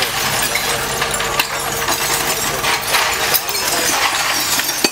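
A diesel engine idling steadily, with scattered clinks and knocks of glass beer bottles throughout.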